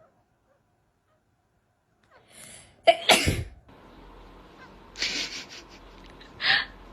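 A sharp sneeze about three seconds in, after a near-silent start, followed by two smaller short bursts over a faint steady background.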